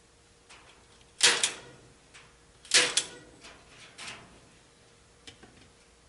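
Staple gun fastening wire mesh to a wooden frame: two loud snaps, each with a quick double crack, about a second and a half apart, followed by a few fainter clicks.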